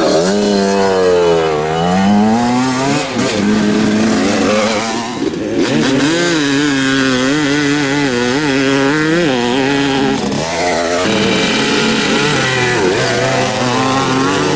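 Classic motocross motorcycle engines revving, the pitch rising and falling again and again as the riders work the throttle and shift gears.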